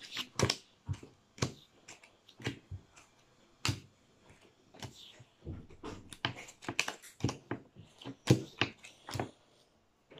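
Playing cards being dealt one after another onto a cloth-covered table: an irregular series of short, sharp card snaps and slaps, some close together, with brief quiet gaps between.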